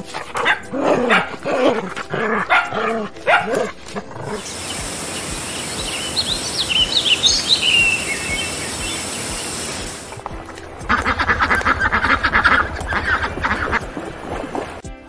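A dog barking in short repeated calls for the first few seconds. Then birds chirp over a steady hiss, and near the end comes a fast run of rapid calls.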